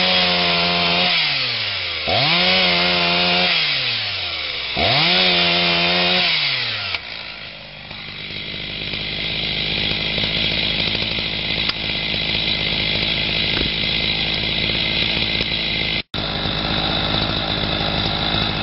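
Two-stroke chainsaw revved up and back down three times, about every two and a half seconds, then running on more steadily after about seven seconds.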